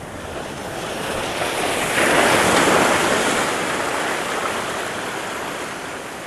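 A sea wave surging in and breaking over the boulders of a rock jetty. It swells, reaches its loudest about two seconds in, then slowly washes back out.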